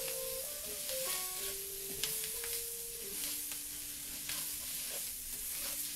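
Diced onion, bell pepper and celery sizzling in a butter-and-flour roux in a hot cast-iron skillet while being stirred, with short clicks of the spoon against the pan. The vegetables' water hitting the hot fat keeps up a steady sizzle.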